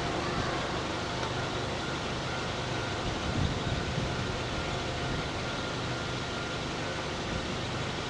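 Steady hum of a car idling at a standstill, heard from inside the cabin.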